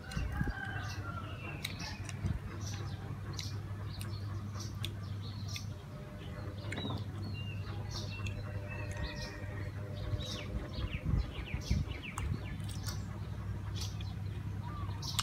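Birds chirping, many short high chirps, some sliding down in pitch, over a steady low hum.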